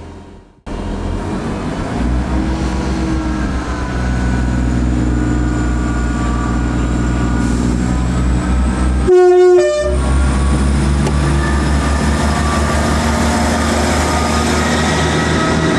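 A train running with a steady low engine rumble and a thin, slowly rising whine. About nine seconds in it sounds one short horn blast.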